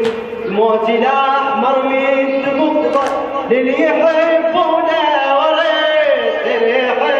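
A man chanting a Husseini latmiya (Shia mourning elegy) solo into a microphone. He holds long, wavering notes that slide from pitch to pitch, with a sharp knock near the start and another about three seconds in.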